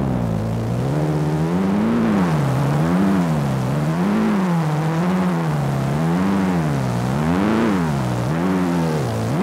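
A sustained drone tone run through the Woozy effects pedal, its pitch swinging up and down in a deep, smooth wobble about once a second, with a rich stack of overtones.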